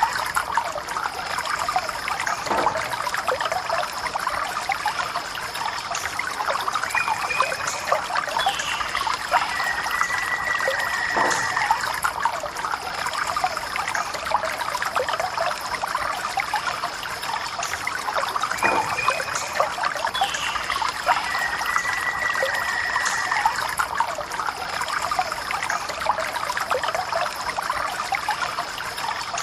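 A thin stream of water from a small tap on a pipe, trickling and splashing steadily as it falls.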